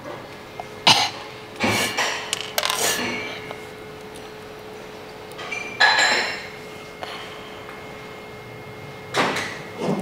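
Sharp plastic clicks and knocks of mechanical keyboard parts being pressed into place, in clusters about a second, two, three, six and nine seconds in, over a faint steady hum.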